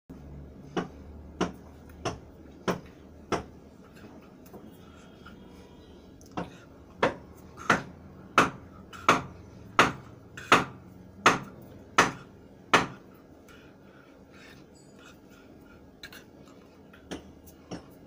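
Sharp knocks at an even pace, about three every two seconds: five, a pause of about three seconds, then a louder run of ten, then a few fainter ones near the end.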